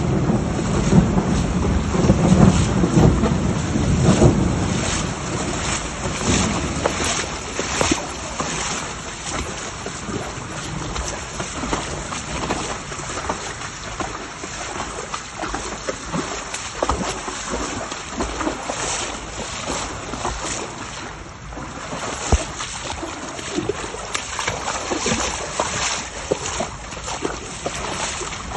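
Heavy downpour, with rain pattering and runoff water rushing along a flooded street, and wind buffeting the microphone. A low rumble of thunder fades over the first few seconds.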